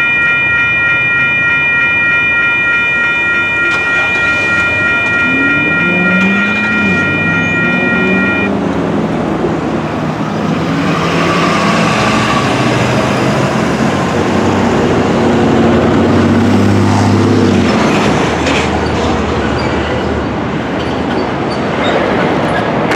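Electronic railroad crossing bells ringing a steady high tone, cutting off suddenly about eight seconds in as the crossing deactivates. Road traffic follows, car engines pulling away across the crossing with rising engine pitch.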